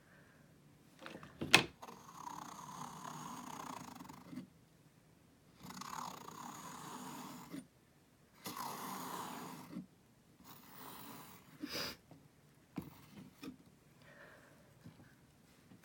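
Metal palette knife scraping paint across a stretched canvas in several long strokes, three of them two to three seconds each, then shorter ones, with a sharp tap about a second and a half in.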